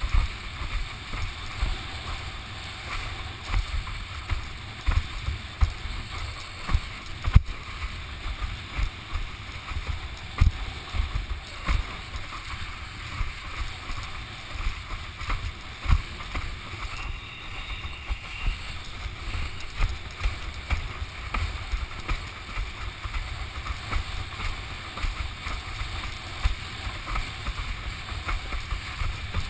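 Wind buffeting the microphone of a camera mounted on a windsurf rig, in many irregular low thumps, over a steady hiss of sea water rushing past the board as it sails along.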